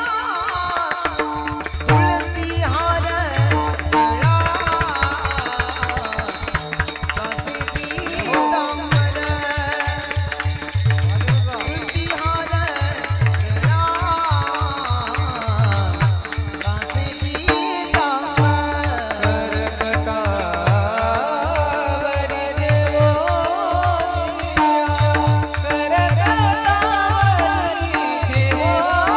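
Marathi kirtan panchpadi: a male voice sings a devotional melody over a steady held drone, with a drum beating a quick, continuous rhythm underneath.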